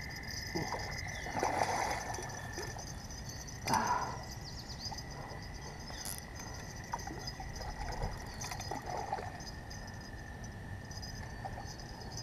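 Frogs calling by the water: a steady high-pitched trill, with a couple of short, louder sounds about one and a half and four seconds in.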